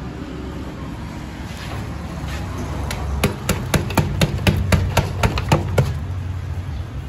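A quick run of about a dozen sharp knocks, about four or five a second, starting about three seconds in: a plastic ice cream tub being knocked against the rim of an aluminium pot to free the block of ice cream.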